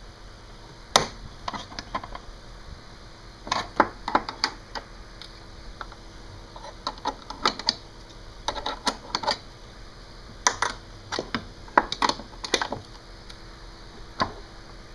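Metal hand tools clicking and clinking in short, irregular clusters, a few sharp strikes at a time.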